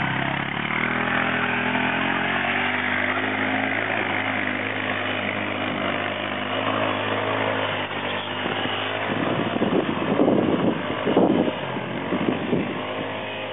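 1998 Honda Foreman 450 ATV's single-cylinder four-stroke engine running under throttle, its pitch wandering as it drives off. From about nine seconds in come several louder, rougher surges.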